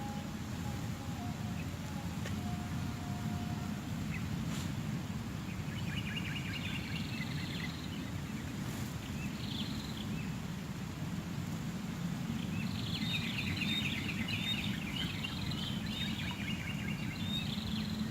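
Small birds twittering in two bouts over a steady low outdoor rumble.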